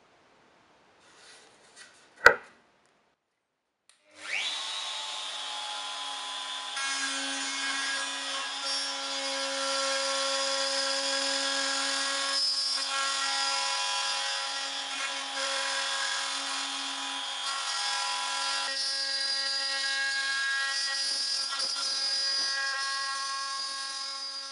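A sharp knock about two seconds in. Then a DeWalt compact trim router starts about four seconds in and runs steadily with a whine, routing MDF as it is pushed along an aluminium guide rail.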